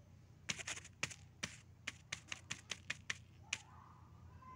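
About a dozen quick, sharp clicks or taps in an uneven run, roughly three or four a second, stopping about three and a half seconds in.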